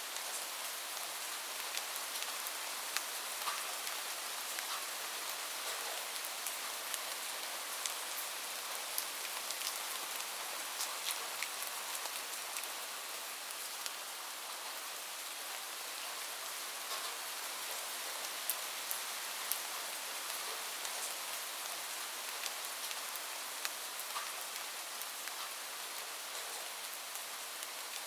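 Light rain falling steadily, a soft even hiss with the pattering of individual drops ticking on a surface.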